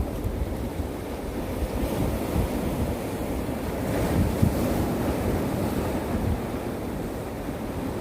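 Winter sea surf washing and breaking on the shore, a steady rushing that swells a little about halfway through. Wind buffets the microphone as a fluttering low rumble.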